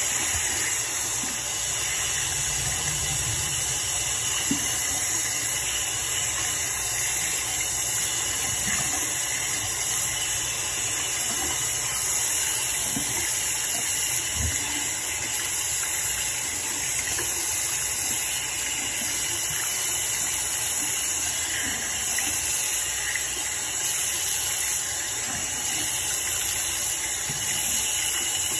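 Bathroom sink faucet running steadily, the stream splashing over hands and into the basin.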